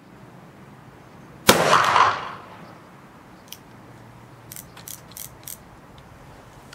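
A single shot from an original 1863 Remington New Model Army .44 black-powder percussion revolver, about a second and a half in, echoing for about a second off the range walls. A few light clicks follow as the revolver is handled.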